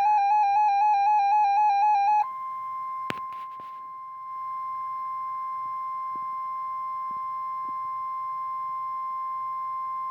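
NOAA weather radio alerting for a severe thunderstorm warning. A rapidly warbling electronic alarm beep sounds for about two seconds, then switches to the steady 1050 Hz warning alarm tone, which holds for the rest. A single sharp click comes about three seconds in.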